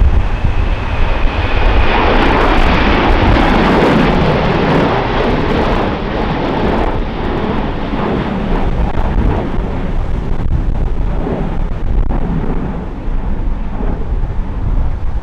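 A Ryanair Boeing 737-800's CFM56 jet engines running at high power as it climbs away from an aborted landing. The noise is loudest about two to six seconds in and then eases off. Gusty wind rumbles on the microphone underneath.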